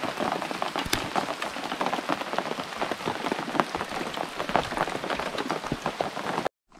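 Rain falling, with many separate drops ticking close by; it cuts off suddenly near the end.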